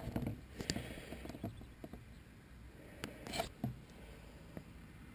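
Scattered faint clicks, taps and rustles of hands handling a camera and its housing, with a louder cluster of clicks about three and a half seconds in.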